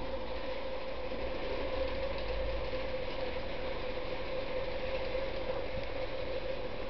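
Steady machine hum holding one constant pitch, with a fine grainy rasp over it.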